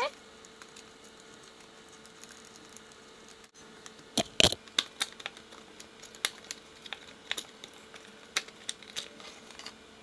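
Irregular light clicks and taps beginning about four seconds in, over a faint steady hum.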